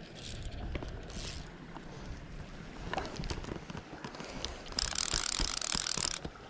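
Short scratchy rustles as fly line is handled, then, about five seconds in, a fly reel's click-and-pawl drag screams for about a second and a half as a hooked salmon pulls line off the reel. It stops abruptly.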